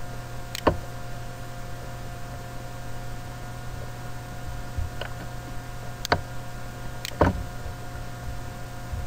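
Steady electrical hum and hiss, with a few sharp computer mouse clicks: one just after the start and a small cluster about six to seven seconds in.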